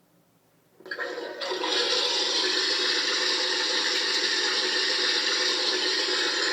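Japanese toilet privacy sound device playing a recorded toilet-flushing sound through its speaker, with no real flush. The rushing water starts about a second in and then runs steady.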